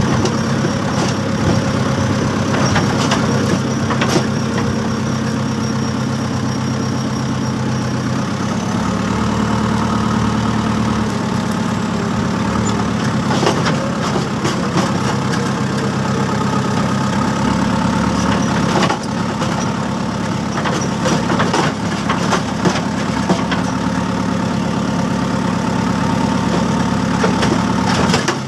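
A JCB earthmover's diesel engine running steadily at low speed, its note shifting slightly about eight seconds in, with scattered knocks over it.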